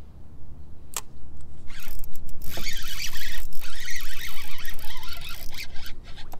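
Fishing reel working during slow-pitch jigging: its mechanism gives a dense, rapid clicking ratchet for about four seconds, starting near two seconds in. A single sharp click comes about a second in.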